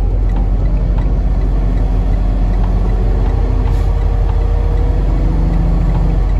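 Semi truck's diesel engine running steadily at low speed, a deep rumble heard from inside the cab.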